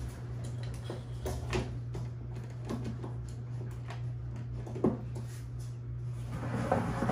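Telescoping pull handle of a wheeled hauler bag being pushed back down, with scattered light clicks and knocks from the handle and the bag being handled; one sharper knock about five seconds in.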